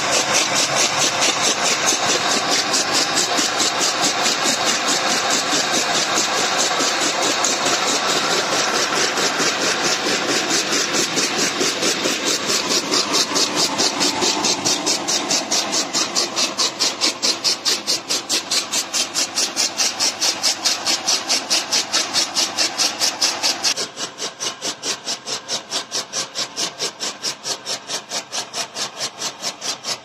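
Electric chaff cutter running and chopping green fodder, its blades beating in a steady rhythm of about three strokes a second. The sound drops noticeably quieter about three quarters of the way through.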